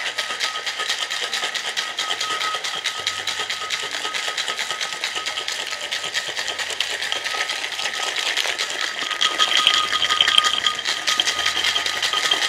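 Ice rattling inside a metal cocktail shaker being shaken hard, a rapid continuous rattle of quick knocks that grows briefly louder about ten seconds in.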